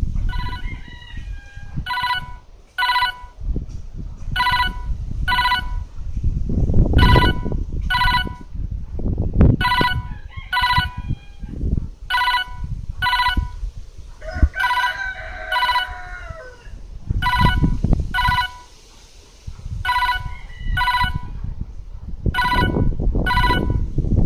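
Siemens M65 mobile phone playing a built-in ringtone through its loudspeaker: pairs of short buzzy beeps, repeating about every two and a half seconds. A rooster crows in the background about midway, and wind rumbles on the microphone.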